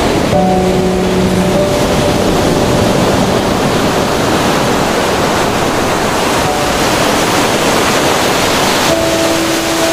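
A steady, loud rushing water sound, with soft held music notes over it briefly near the start and again near the end.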